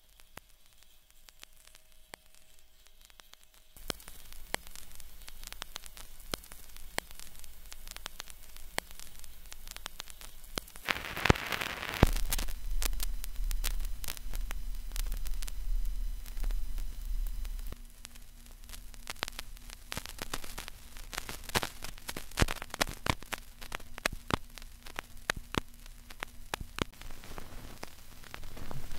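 Glitchy electronic soundscape of crackling static: after a near-silent start, a hiss full of scattered sharp clicks comes in about four seconds in. It swells near the middle, where a low rumble and a steady low hum join it for much of the rest.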